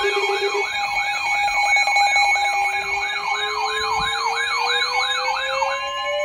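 Several sirens sounding at once: a fast yelp sweeping up and down about three times a second over steady tones, joined about two seconds in by a slowly rising wail. The yelp and the steady tones cut off near the end.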